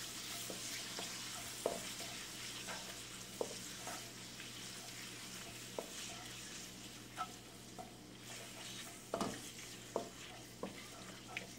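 Vegetables and chicken sizzling in a hot wok as a wooden spatula stirs and tosses them, with scattered scrapes and knocks of the spatula against the wok. The sizzle slowly dies down.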